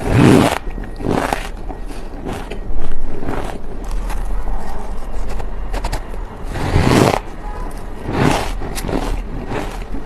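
Ice being bitten and chewed close to the microphone: a string of separate crunches, roughly one every second or two, with gritty chewing between them.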